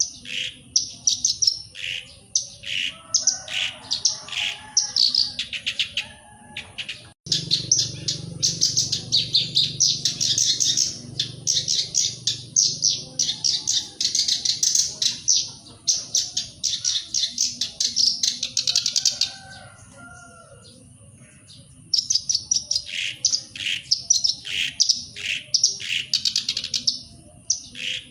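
Black-browed reed warbler singing in long runs of rapid, scratchy chattering notes, with a pause of about two seconds near twenty seconds in.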